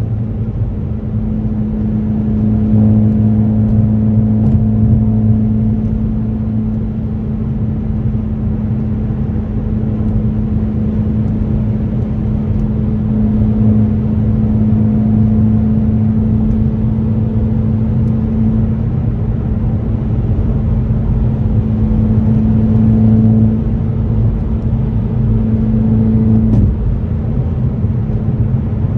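2018 Ford Focus ST's turbocharged 2.0-litre four-cylinder with an AWE axle-back exhaust, cruising at steady revs with a constant drone. The pitch steps down slightly near the end.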